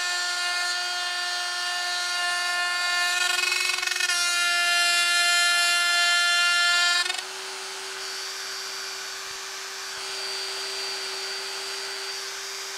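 Hercules quarter-inch electric die grinder, mounted as a tool post grinder, whining steadily as its wheel grinds the point of a lathe dead center. About seven seconds in it drops suddenly quieter and rises slightly in pitch as the wheel comes off the work and runs free.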